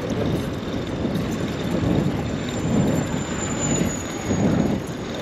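Wind buffeting a GoPro's microphone while cycling, an uneven low rumble that swells and dips, over the steady noise of rush-hour street traffic.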